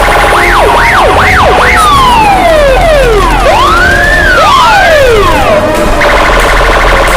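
Loud layered siren and alarm sound effects: quick rising-and-falling wails and long overlapping glides, with a fast pulsing alarm tone that comes back about six seconds in. A chaotic 'collapse' noise track made to accustom protection dogs to noise and stress.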